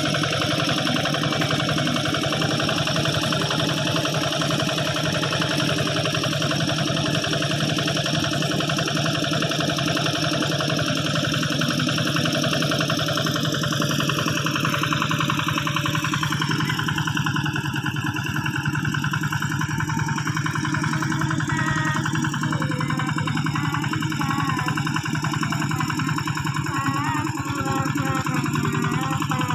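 Old two-wheel hand tractor's diesel engine running steadily. The higher part of its sound thins out about halfway through.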